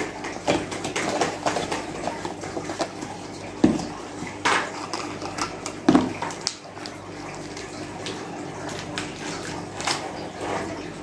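Cardboard boxes, a small metal tin and a glass jar being opened and handled on a table: scattered clicks, rustles and light knocks, with a few sharper knocks around the middle.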